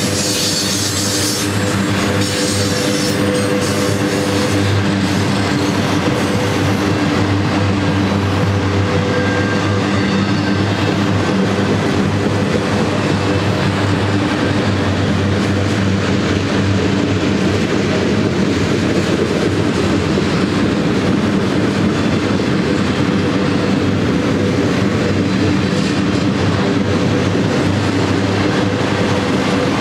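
Freight train of enclosed autorack cars rolling past at steady speed: a continuous rumble and clatter of steel wheels on the rail, with a steady low hum under it.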